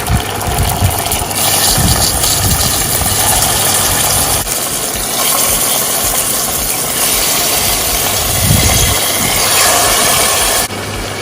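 Marinated chicken sizzling in hot ghee in a frying pan: a loud, steady hiss with a few low thuds, dropping off sharply near the end.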